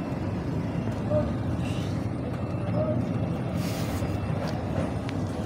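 Truck engine idling with a steady low rumble.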